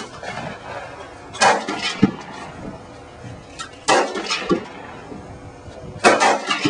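Rifle shots at a range: three shots about two and a half seconds apart, each trailing off briefly.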